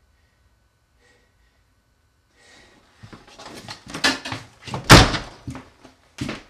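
An interior door is slammed shut about five seconds in, a single heavy bang, amid a run of shorter knocks and clicks as someone moves through the doorway.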